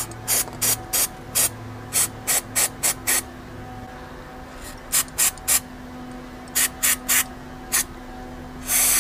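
An aerosol can of throttle body and air intake cleaner hisses in about fifteen short spurts, bunched in groups, as it is sprayed into an idle air control valve to clean it. Near the end comes one longer, steady spray.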